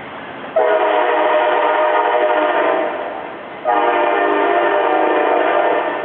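Train horn sounding two long blasts, each a steady multi-note chord lasting about two and a half seconds, the second starting about a second after the first fades.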